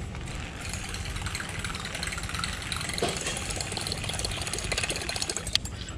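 Baitcasting reel being wound in fast, a rapid whirring rattle, over a low steady drone.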